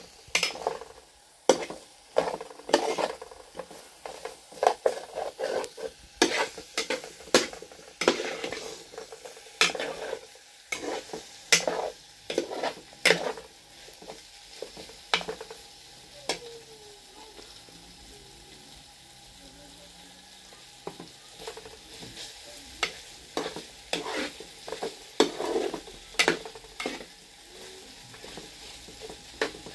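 Food frying in a pan while a utensil stirs it, with irregular scrapes and clinks against the pan over a faint steady sizzle. The clinks thin out for a while in the middle.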